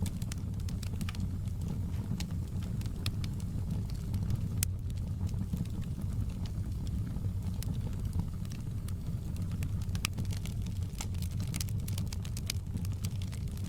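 Wood fire crackling in a fireplace: scattered sharp pops and snaps over a steady low rumble of the flames. One louder pop comes about a third of the way in, and the crackles come thicker near the end.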